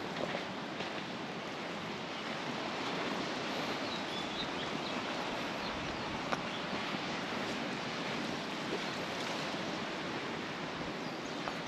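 Steady wash of ocean surf, an even hiss with a few faint ticks.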